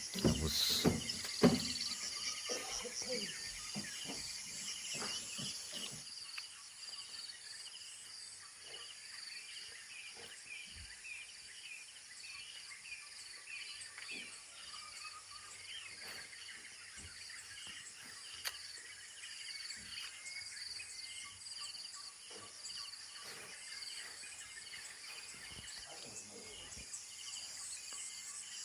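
Night-time rainforest insect chorus: crickets and other insects trilling steadily at a high pitch, with many short chirping calls repeating over the top.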